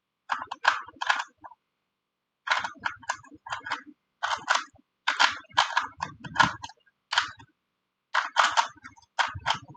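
A Rubik's brand cube being turned fast by hand during a timed solve: bursts of rapid plastic clicking and clacking, several turns at a time, with short pauses between bursts.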